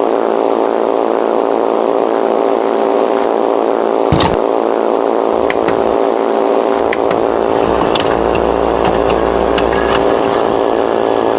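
Loud, steady electrical buzz over static hiss, the distorted broadcast-signal noise of an analog-horror emergency alert intro. Scattered crackles and pops run through it, with a sharp one about four seconds in, and a low rumble joins in past the middle.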